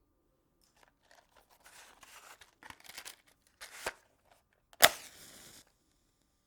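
Wooden matches struck against a matchbox: a few scraping strokes, then a sharp strike about five seconds in that flares into a short hiss and stops after about a second.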